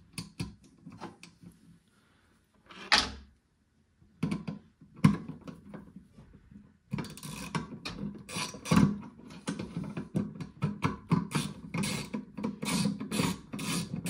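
A hand screwdriver turns the mounting screw of a microwave turntable motor into the microwave's sheet-metal floor. Scattered handling clicks and scrapes come first, with one louder scrape about three seconds in. From about seven seconds in, a steady quick run of clicking, scraping strokes follows as the screw is driven.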